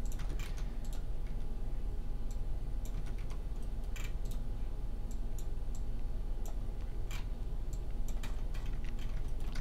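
Scattered clicks and taps of a computer keyboard and mouse, a dozen or so at irregular intervals, over a steady low background hum.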